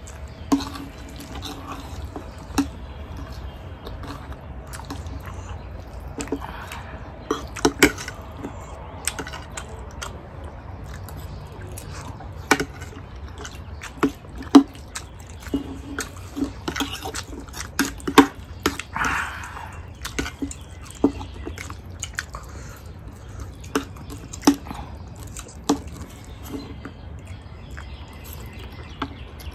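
Close-up eating sounds of jjajangmyeon black bean noodles: wet slurping and chewing, with many short sharp clicks of metal forks and spoons against plates. One longer slurp comes a little past halfway.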